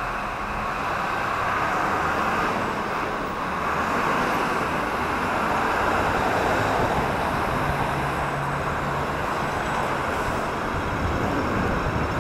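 Steady road traffic noise from cars and a bus running close ahead on a city street, as heard from a moving bicycle: engines and tyres on the road, with a low engine drone from a nearby vehicle for a few seconds in the second half.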